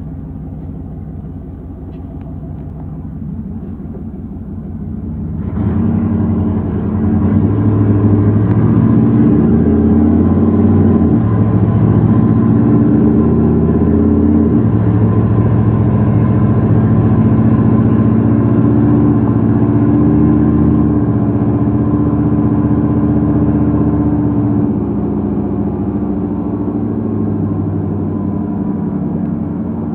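1989 GMC Sierra pickup's engine running, heard from inside the cab. It grows louder about five seconds in and then holds steady, as the truck is run to test the repaired odometer.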